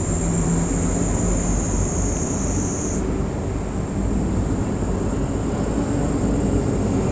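Steady low background rumble under a continuous high-pitched whine that jumps up in pitch about three seconds in.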